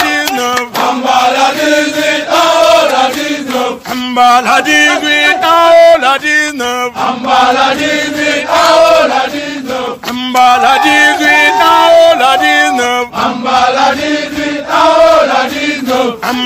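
Senegalese army marching chant: a group of voices singing together in a repeating phrase, each phrase lasting about three seconds.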